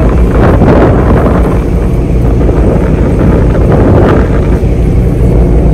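Marine diesel engine running steadily at low revs, a deep even hum, with wind buffeting the microphone.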